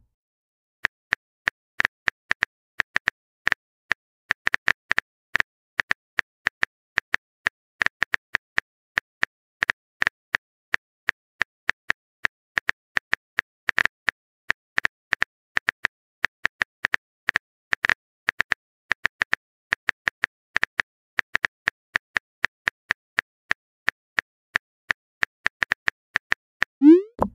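Phone keyboard typing sound effect: quick, irregular clicking taps, several a second. Near the end comes a short rising bubble pop as a chat message is sent.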